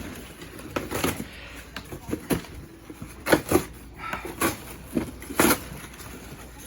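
Cardboard box and packing material being pulled and handled, with irregular knocks, scrapes and rustles; the loudest come a little after three seconds in and again about five and a half seconds in. The box is tightly overstuffed with packing, so the contents are being worked out by force.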